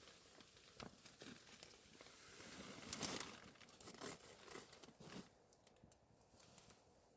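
Faint crinkling of a plastic Ziploc bag and a foil freeze-dried meal pouch being handled, as the pouch is wrapped in the bag. Loudest about three seconds in, then fading to only a few small crackles.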